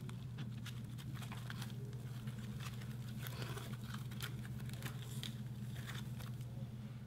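Thick slime being stretched, twisted and coiled by hand, giving many small sticky crackles and pops over a steady low hum.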